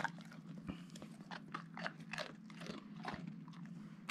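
A dog crunching and chewing a freeze-dried beef liver treat cube, an irregular run of crisp crunches about three times a second.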